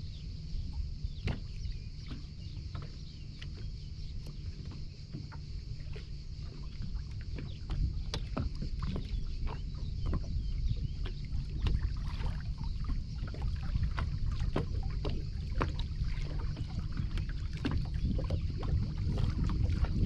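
Wind rumbling on the microphone of a boat on open water, louder from about eight seconds in, with small waves slapping irregularly against the hull.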